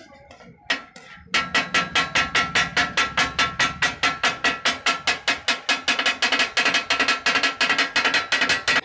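Two metal spatulas rapidly chopping and clanging on a large flat tawa griddle as mutton liver is chopped into its masala, the rhythmic tak-a-tak of tawa kaleji fry. After a couple of single knocks, a steady run of ringing metal strikes starts a little over a second in, about five strikes a second.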